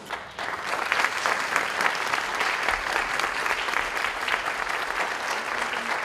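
Audience applauding: many hands clapping together, starting just after the start and keeping up a steady, dense clatter.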